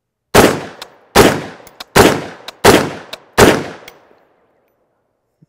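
CMMG Mutant Anvil semi-automatic rifle in .458 SOCOM firing five shots in quick succession, about one every three-quarters of a second, each a sharp blast that dies away over about half a second. A faint click follows each of the first four shots.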